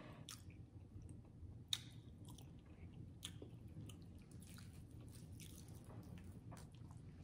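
Faint close-miked chewing and wet mouth sounds, with soft squishy sounds of turkey leg meat being pulled apart by hand and scattered small clicks, one sharper click about a second and a half in.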